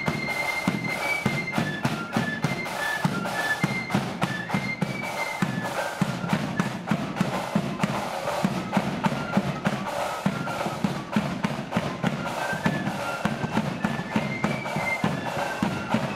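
Marching flute band playing a tune: flutes carry a stepping melody over steady, rapid drum beats.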